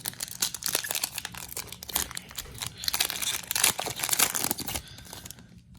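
Foil trading card pack being torn open and its wrapper crinkled, a dense crackling that lasts nearly five seconds and then stops.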